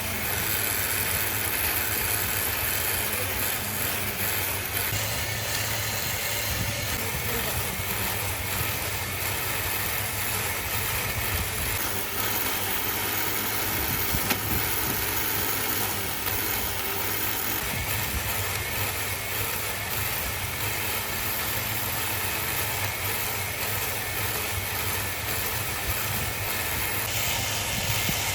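Workshop machinery running steadily: a constant motor hum with a dense high whir.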